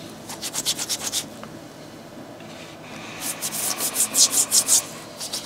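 Small brush scrubbing a sneaker in rapid back-and-forth strokes, in two runs: one in the first second and another from about three to nearly five seconds in.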